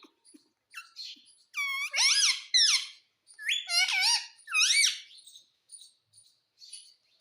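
Pet parrot calling: a run of high, squeaky calls that glide up and down in pitch, with a few faint clicks before and after.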